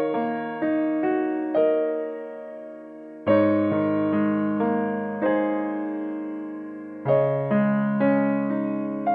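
Background piano music: a big chord struck about every three to four seconds with single notes between, each left to ring and fade.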